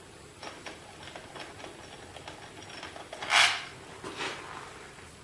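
Small motorcycle parts and tools being handled: light clicks and taps, with a short, louder scrape about three and a half seconds in.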